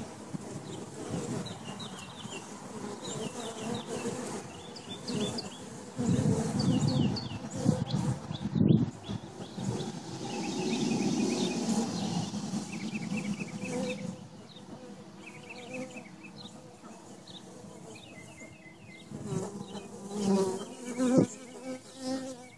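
Honeybees buzzing at a hive entrance. The buzz swells loudly several times as bees fly close past: about six seconds in, again around eleven seconds, and near the end.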